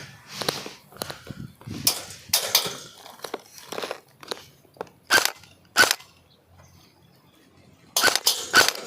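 Airsoft guns firing: sharp cracks as single shots and short quick strings, with a quiet stretch about two-thirds of the way through before a fast string near the end.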